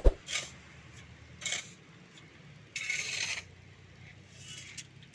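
Steel shovel scraping and scooping into a pile of sand and cement mix, in separate gritty strokes, the longest about three seconds in. A couple of sharp metal knocks at the very start.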